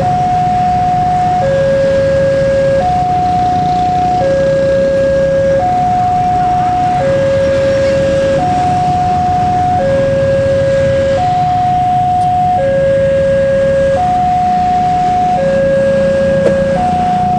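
Level-crossing warning alarm sounding a steady two-tone high-low signal, each tone held about a second and a half, the sign that a train is approaching the crossing. A low rumble runs underneath.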